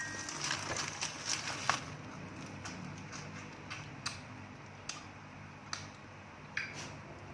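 Scattered light clicks and taps, roughly one a second, over a faint low hum: small sounds of handling food and dishes while eating.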